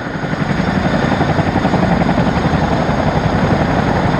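Military helicopter running on the ground ahead of takeoff, engines and rotors turning with a steady, rapid chop of the blades.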